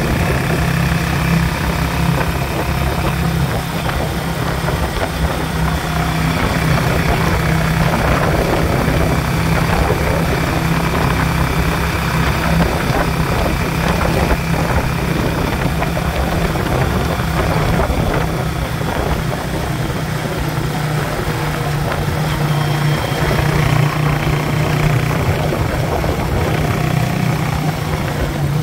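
Trike's motorcycle engine running steadily on the move, a constant low drone with road and traffic noise over it.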